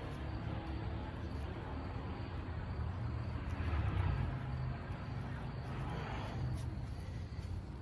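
Digging and scraping through loose garden soil while unearthing sweet potatoes, over a steady low rumble, with two louder scrapes near the middle.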